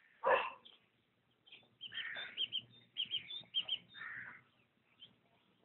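Short high-pitched bird-like chirps in quick runs, with a few soft breathy bursts between them.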